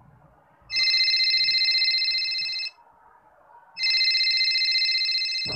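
Telephone ringing twice, each ring about two seconds long with about a second's pause between. The second ring cuts off with a thump near the end.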